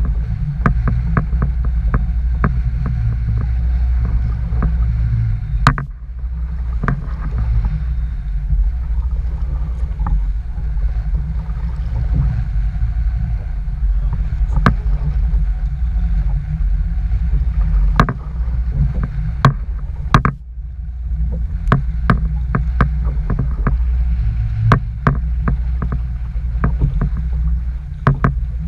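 Strong wind buffeting the microphone as a loud, steady low rumble, with irregular sharp clicks and knocks scattered throughout.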